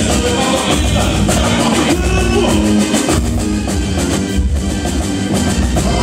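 Boi-bumbá toada played live by a drum-heavy band through a stage sound system: big drums keep a steady, driving beat under the melody.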